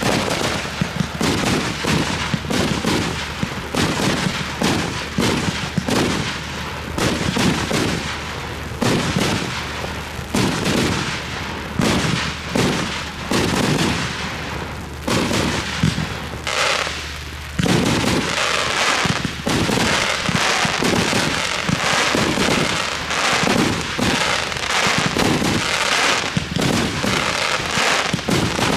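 Fireworks display: a rapid, continuous run of shell and cake bursts, several bangs a second, turning into denser crackling about two-thirds of the way through.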